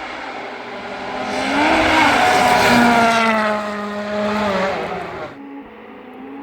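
Mitsubishi Lancer Evolution rally car passing at speed on full throttle. The engine note grows loud, is loudest two to three seconds in, then falls in pitch as the car goes away, and cuts off suddenly about five seconds in.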